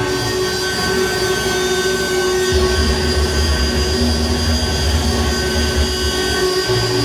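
Live electronic noise music: a dense, loud wall of droning noise with several steady held tones through it, and a heavy low rumble that comes in about two and a half seconds in.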